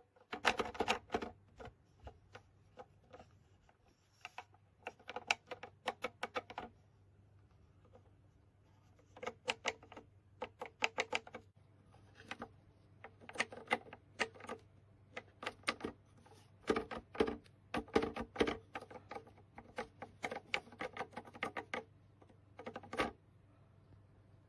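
Irregular runs of quick, light clicks and plucks over a faint steady hum.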